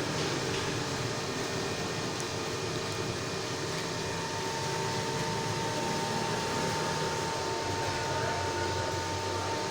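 Steady mechanical hum and hiss with a constant high tone running through it, unchanging throughout.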